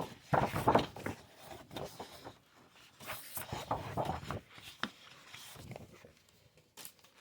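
Sheets of patterned scrapbook paper being handled and turned over, in irregular rustles with a few light taps.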